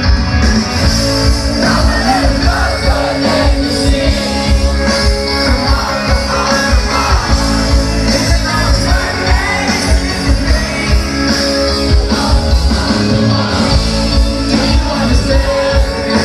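Rock band playing live: electric guitars, bass and drums with a steady beat, and a male lead singer singing over them.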